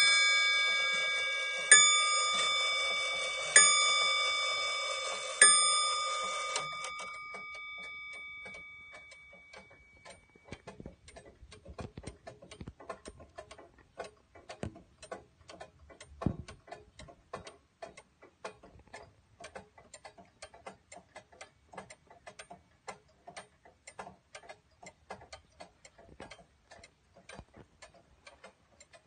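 Triple-fusee skeleton clock striking a bell a few times about two seconds apart, the last stroke about five seconds in, each left ringing until it fades out. Then the movement ticks steadily, with one louder knock about sixteen seconds in.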